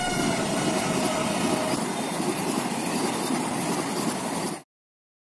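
Train passing at speed, its horn sounding with a pitch that falls slightly as it goes by and fading out within the first two seconds, over the steady noise of the coaches running on the track. The sound cuts off suddenly about four and a half seconds in.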